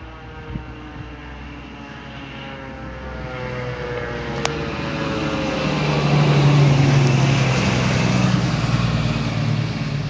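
An emergency vehicle's engine approaching and passing, growing steadily louder to its loudest about six to seven seconds in, then easing off.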